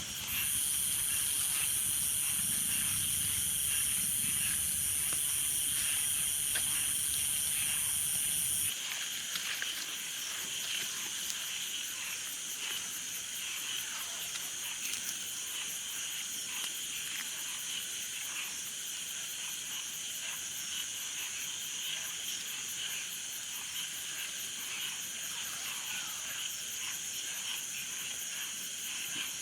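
A steady chorus of night insects and frogs, with scattered faint ticks. A louder high-pitched hiss with a low rumble under it cuts off suddenly about nine seconds in.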